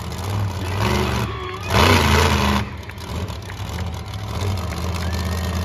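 Monster truck engine revving in uneven throttle bursts as the truck balances upright on its rear wheels, with one louder full-throttle burst about two seconds in.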